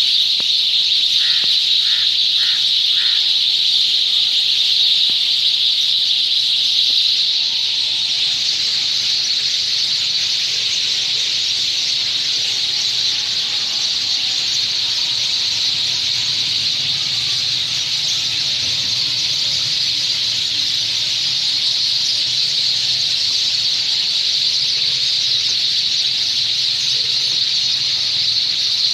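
A large flock of sparrows chirping all at once at their evening roost, the calls merging into one continuous high-pitched din that barely varies, a little louder in the first few seconds.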